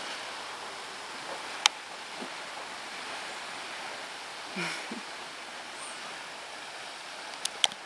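Steady hiss of beach ambience, the wash of sea and wind on the microphone, with a few faint clicks.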